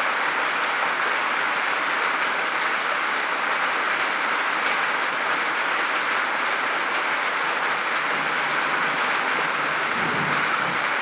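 Hailstorm with heavy rain: a steady, dense pelting hiss. A low rumble swells in near the end.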